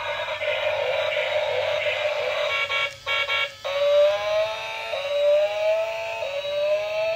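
Electronic sound effects from a light-up toy dinosaur car's small built-in speaker. It starts with a rough, noisy sound, then a rising siren-like tone plays three times, about one every second and a bit.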